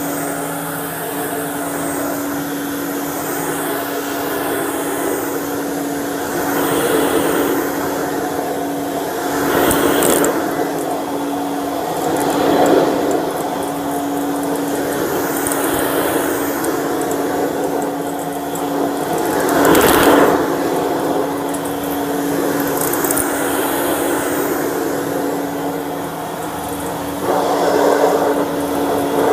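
Dirt Devil Broom Vac stick vacuum running with a steady motor hum and airflow rush, swelling louder briefly several times, most strongly about twenty seconds in.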